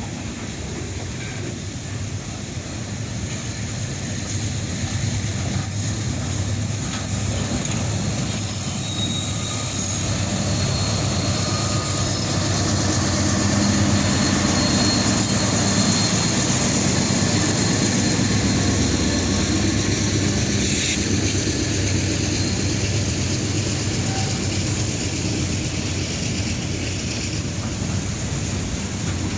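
Norfolk Southern freight train's cars rolling past: a steady rumble of steel wheels on rail with some faint wheel squeal, growing louder toward the middle.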